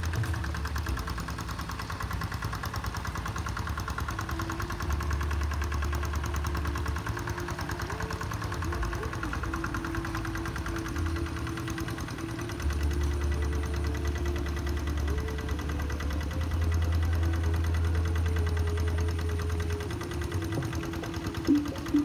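Single-cylinder Kubota diesel engine of a two-wheel hand tractor running steadily under load while ploughing a wet rice paddy, with a continuous rapid knocking beat. Its low rumble grows louder for a few seconds at a time.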